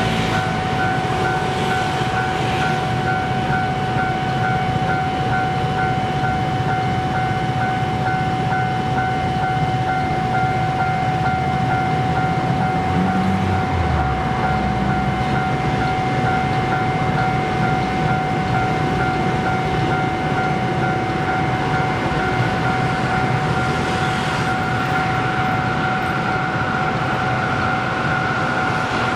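Railway level-crossing warning bell sounding, an electronic ding repeating rapidly and evenly over a steady tone, signalling an approaching train. A low rumble runs underneath.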